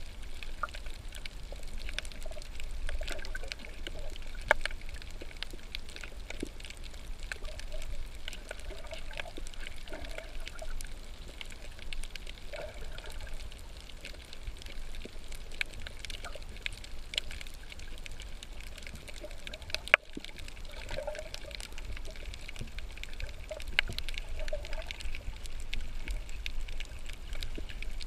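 Water sloshing and trickling around a snorkeler's camera, with a steady low rumble and many scattered sharp clicks; two louder clicks stand out.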